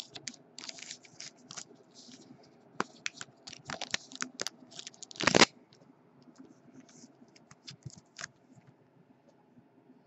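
Clear plastic card sleeve and rigid plastic card holder being handled as a trading card is slid into them: irregular scratchy rustles and small clicks, the loudest a brief scrape about five seconds in, then only a few soft scratches.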